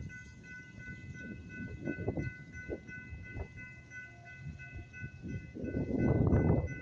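Railroad grade-crossing bell ringing steadily while a Metra train passes, with rumbling and clattering from the train that swells loudest near the end.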